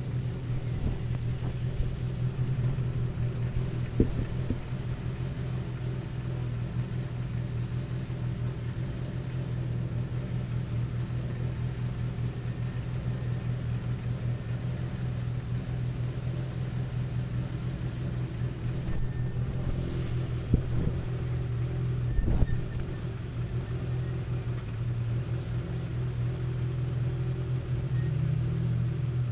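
Rally car engine idling steadily with a deep even note, with a few short knocks along the way.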